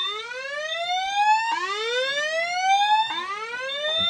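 Evacuation amplifier's built-in tone generator sounding a whoop alarm tone through its speaker: rising sweeps, a new one starting about every second and a half. This is the attention tone that sounds once the alarm is activated, before the voice message cuts in. A faint high beep repeats about once a second underneath.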